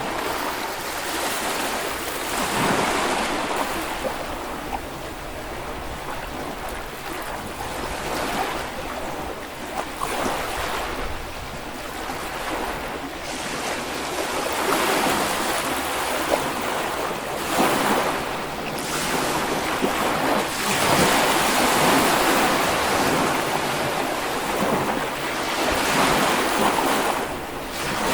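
Small waves breaking and washing onto a Baltic Sea beach, the surf swelling and ebbing every few seconds, with some wind on the microphone.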